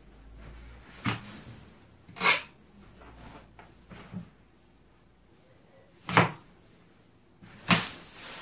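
A pink latex balloon being squeezed and rubbed against a furry costume, making four short, loud rubbing squeaks and bumps. The balloon does not burst.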